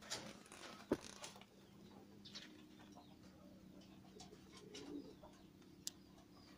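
Faint cooing of a pigeon in a quiet background, with a sharp click about a second in and another short click near the end.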